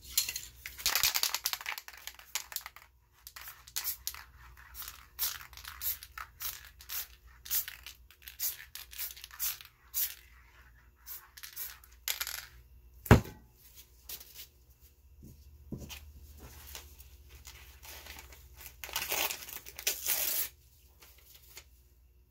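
Crumpled material crinkling and dabbing against a wet spray-painted canvas, a long run of short irregular rustles. A single sharp knock comes about 13 seconds in, and a longer hiss-like rustle near the end.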